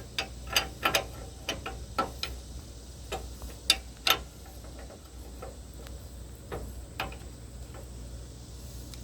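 A 1/2-inch drive hand ratchet clicking in short irregular runs as a mower deck wheel's lock nut is tightened. The clicks are frequent for the first few seconds, then thin out to an occasional single click.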